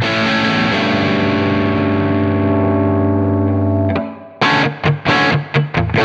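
Electric guitar with crunch distortion from a TONEX model of a Marshall SV20H amp. A chord is struck and left ringing for about four seconds, then cut off, and short choppy chords follow.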